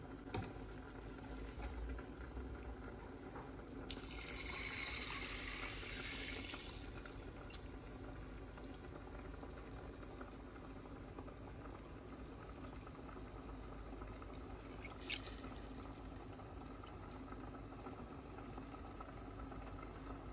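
Whole milk poured in a faint, steady stream into a stainless steel pot of raw rice and sugar, filling it, loudest for a few seconds about four seconds in. A single light knock about three quarters of the way through.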